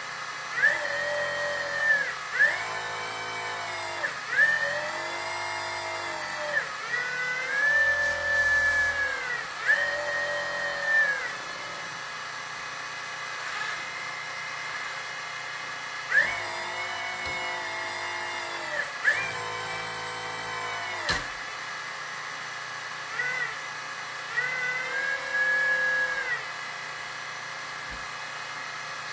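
The electric hydraulic pump of a Lesu Kobelco SK500 RC excavator whines in about nine bursts a second or two long as the hydraulic functions are worked. Each burst rises in pitch at the start and falls away at the end, and there is a pause of several seconds in the middle.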